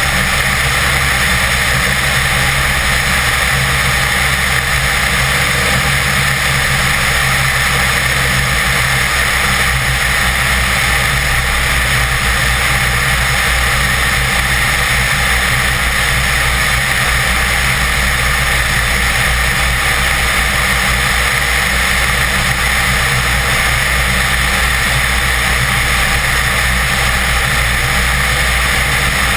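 BD-4 light aircraft's piston engine and propeller running at a steady drone in flight, heard from a wing-mounted camera with airflow rushing over it.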